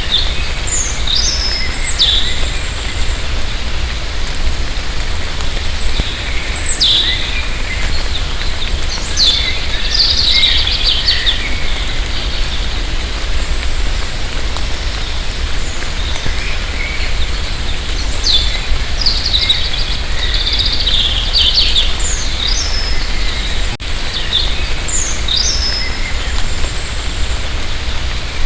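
Light rain falling steadily in a forest, an even hiss with a low rumble underneath, while songbirds call throughout with short falling whistles and chirps.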